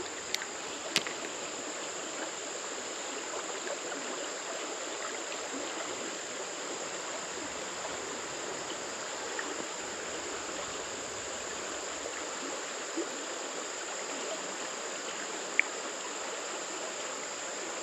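Shallow creek running over a rippling riffle: a steady rush of flowing water. A few short ticks come through about a second in and near the end.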